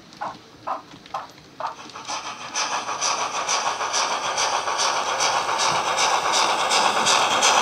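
Digital steam-locomotive sound from the DCC sound decoder and speaker of a Hornby W1 'Hush Hush' model. Separate chuffs come at about two a second. About two seconds in they turn into a louder, dense rushing exhaust with a quicker beat, as the model draws near.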